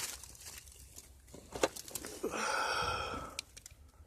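A person blowing out a long breath, lasting about a second, amid soft clicks and rustles in a small snow-walled room, with one sharp click before it.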